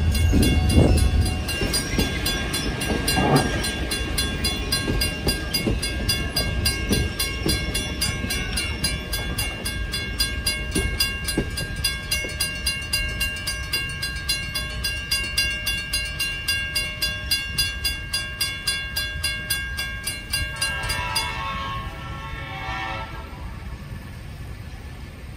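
Railroad crossing bell ringing steadily at about two strikes a second while the last coach of a passenger excursion train rumbles past at the start. The bell stops about 21 seconds in as the crossing gates go up, and a short pitched sound follows.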